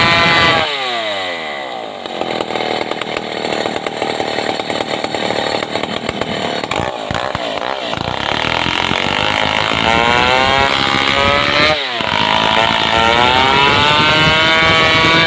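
Stihl 070 chainsaw, a large two-stroke, running at full throttle. Just under a second in, its pitch drops sharply and stays low and rough for several seconds as the chain bites into the sengon log. The engine then revs back up, with a brief dip near the end.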